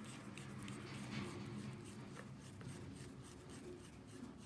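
Hands screwing a threaded, O-ringed brass fitting clockwise into the black tube of a Precihole PX100 PCP air rifle: faint rubbing and scraping of metal and rubber with a few small clicks, over a faint low hum.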